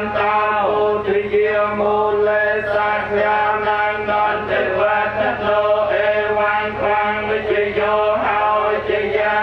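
A group of Buddhist monks chanting together: male voices held on steady, slowly shifting pitches without a break.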